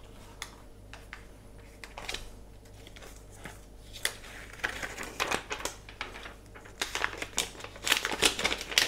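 Protective wrap being peeled off the back of a new tablet: scattered light clicks and crinkling rustles, growing busier about halfway through.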